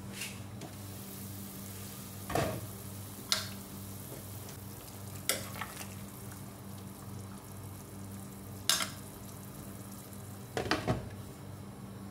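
Pot of chicken soup boiling on the stove, a steady bubbling hiss over a low hum, with several sharp knocks of a utensil against the pot.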